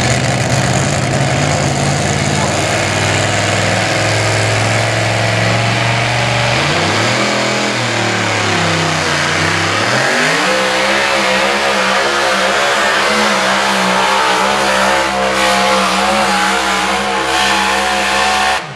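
Two-wheel-drive pulling truck's engine running flat out under load while dragging the weight sled. It is a steady high-revving drone that sags in pitch for a couple of seconds about seven seconds in, then climbs back and holds. It cuts off suddenly near the end.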